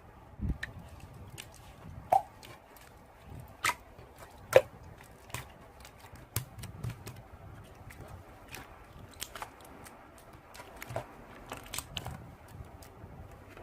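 Slime being squeezed and worked by hand, giving irregular sticky clicks and pops, a few of them sharp and loud.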